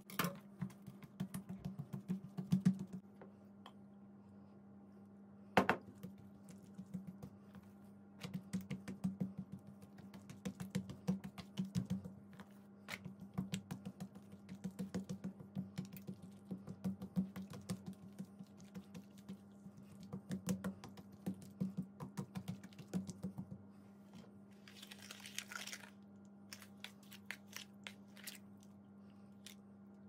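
Dough being rolled out thin on a kitchen countertop: runs of quick light clicks and taps in bursts, with one sharper knock early on and a brief hiss near the end, over a steady low hum.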